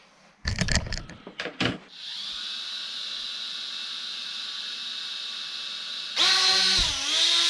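A few brief clattering knocks, then the tiny Elfie folding quadcopter's motors and propellers start a steady high-pitched whine about two seconds in. About six seconds in the whine gets suddenly louder as the throttle goes up, and its pitch dips briefly and recovers.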